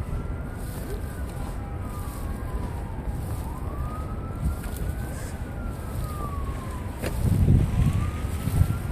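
Emergency vehicle siren wailing, its pitch slowly rising and falling about every four seconds, over a steady low rumble of wind noise that grows louder near the end. A single sharp click sounds about seven seconds in.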